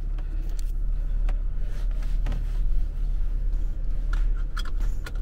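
4x4 camper van heard from inside the cab while crawling over a bumpy grass track: a steady low engine and drivetrain rumble, with scattered knocks and rattles from the body and interior, and a few brief high-pitched squeaks about four seconds in.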